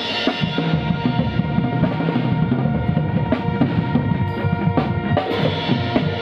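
A percussion front ensemble playing: mallet keyboards such as vibraphone and marimba ring over a busy drum-kit groove with cymbal.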